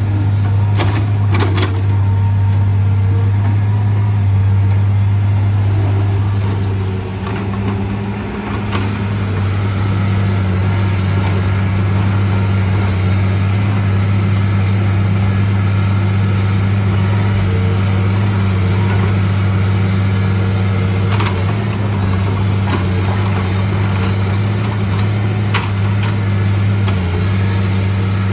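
Heavy-equipment diesel engine of a logging excavator running steadily at constant revs, with a few brief clicks or knocks.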